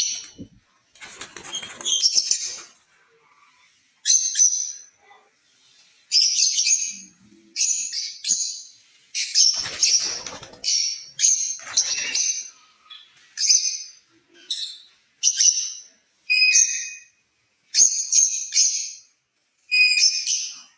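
Lovebirds giving short, shrill chirping calls in rapid bursts about once a second, with a few harsher, noisier squawks among them.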